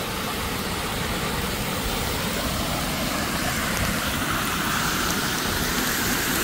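Steady rushing and splashing of floodwater spouting up through a road drain cover, with rain hissing on the wet road around it. The drain is jam-packed with water and overflowing in a flash flood.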